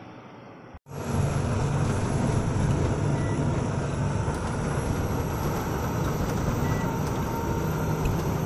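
Steady engine and road noise heard from inside the cab of a moving vehicle. It starts suddenly just under a second in, after a moment of faint roadside ambience.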